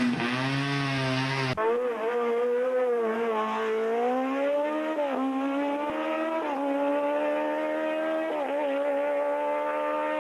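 Racing sport prototype's engine at full throttle on a hillclimb. Its pitch climbs steadily and drops sharply at three upshifts, about five, six and a half and eight and a half seconds in, heard on a muffled old videotape recording. The first second and a half is a clearer recording of a race car engine held at steady revs.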